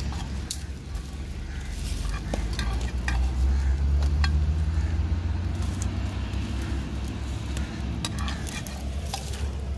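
Scattered clinks and knocks of cooking pots and utensils over a low rumble of road traffic, which swells through the middle.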